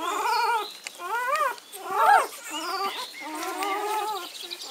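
Four-day-old Malinois puppy squealing in a series of about five short, high, wavering cries; the loudest rises sharply about two seconds in.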